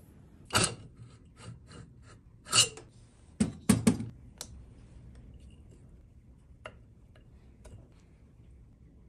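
Clinks and knocks of the aluminium cylinder head and cylinder of a 66/80 cc two-stroke bicycle engine as they are lifted off and set down on a wooden workbench during teardown. There is a clatter about half a second in and another near two and a half seconds, the loudest cluster comes at three and a half to four seconds, and after that only a few faint ticks.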